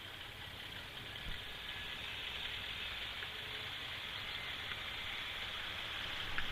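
Distant off-road 4x4's engine running under a steady hiss, growing gradually louder.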